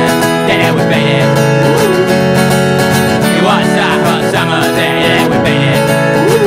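Acoustic guitar strummed in a steady driving rhythm, with a melody line over it that bends up and down in pitch.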